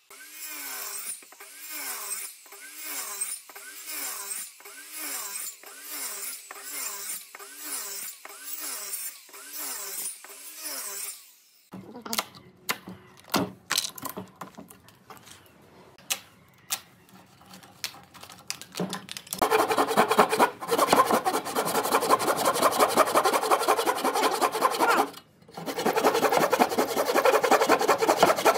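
A rhythmic pulse, a little faster than once a second, for the first ten seconds or so. Then a few sharp cracks and knocks as thin slices of pine, left between saw kerfs, are snapped out by hand. From about two-thirds of the way in comes the loudest part: a handsaw cutting into a pine beam in fast, even strokes, with one short pause.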